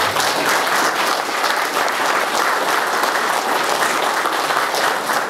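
Audience applauding: steady, dense clapping from a room full of people.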